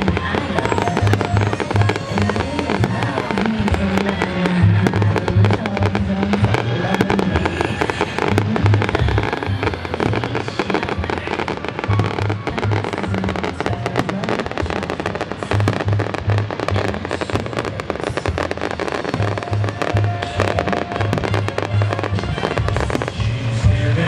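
Aerial fireworks bursting in a dense, continuous barrage of bangs and crackles, with music playing underneath.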